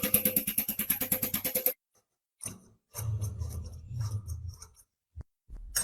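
Rapid, even mechanical clicking, about a dozen clicks a second, that stops after nearly two seconds, followed by scattered clicks and the low clatter of metal parts being handled.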